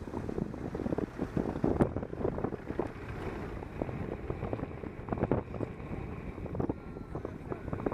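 Wind buffeting the microphone of a camera moving along a road, a low uneven rumble. A single sharp click comes about two seconds in.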